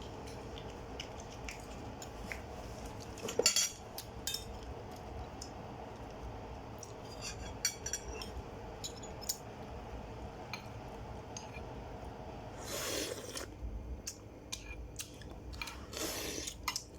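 Cutlery clinking and scraping against dishes as people eat, in many small clicks, with one louder clink about three and a half seconds in and two brief rustling bursts near the end.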